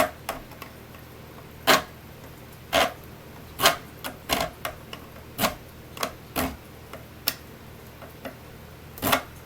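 Irregular sharp clicks and taps, about a dozen of them, from small diorama parts being handled and set down by hand.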